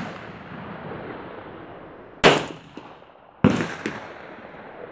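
Two 9mm shots from a Beretta 92FS pistol, about a second apart, each ringing out after the crack, with a small click shortly after the second shot.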